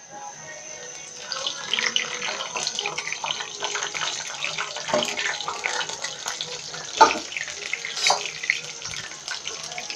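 Peyaju fritters deep-frying in hot oil: a steady sizzle that builds up about a second in, dense with small crackles and pops, with two louder cracks near the end.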